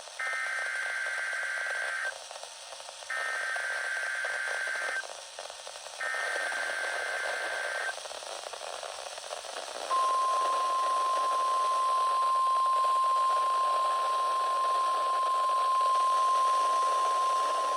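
NOAA Weather Radio required weekly test: three bursts of SAME digital header data, each about two seconds of rapid two-tone warbling with a second's pause between, then the steady 1050 Hz warning alarm tone starting about ten seconds in and holding to the end. It is heard over a steady radio hiss.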